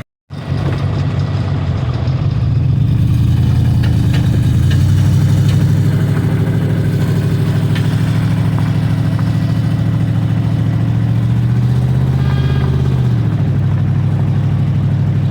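Engine of a four-wheel-drive 1991 Honda Accord build running under load as it tows a loaded trailer uphill. The revs climb a few seconds in, hold steady, then drop near the end.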